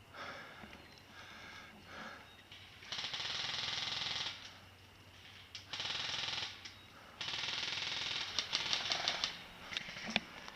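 Airsoft electric guns firing full-auto bursts, a fast, even rattle. There are three bursts, the last lasting about two seconds, followed by a few single sharp shots near the end.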